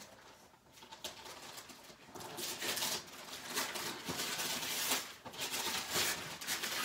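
Christmas wrapping paper being torn and crumpled off a gift box: irregular tearing rustles, soft for the first couple of seconds, then louder.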